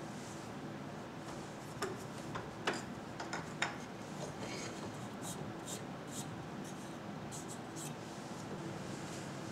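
Wooden pieces knocking and tapping on a wooden workbench top as they are handled. There are a few sharp knocks in the first four seconds, then lighter ticks and rubbing.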